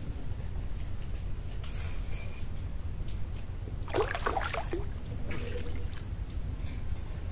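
A hooked fish splashing and thrashing at the water's surface beside the boat, a short burst of splashes about four seconds in.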